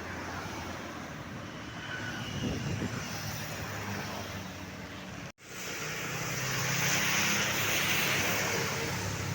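Roadside traffic noise of engines and tyres. A sudden break about five seconds in, then a vehicle passes close, its engine hum and tyre noise swelling louder.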